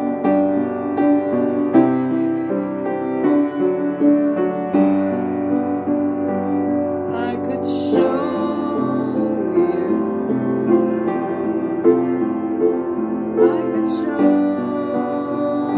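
Piano music, a slow run of sustained notes and chords that change about every second.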